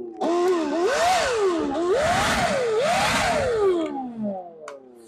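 DeWalt 60V Flexvolt brushless handheld leaf blower running on its variable-speed trigger: the motor and fan whine rises and falls twice with a rush of air, then winds down about four seconds in.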